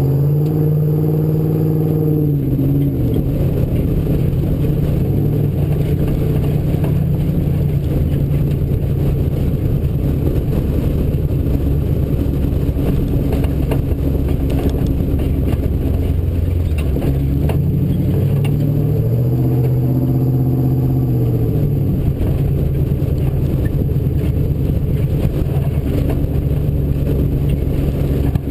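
Ford Bronco off-road race truck's engine running hard under load, its pitch rising and falling near the start and again about two-thirds through, with rattling and knocks from the vehicle over rough ground.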